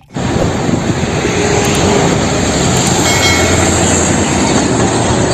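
Fuel tanker semi-trailer truck driving past on a road: a steady rumble of engine and tyre noise that starts abruptly and holds at an even level.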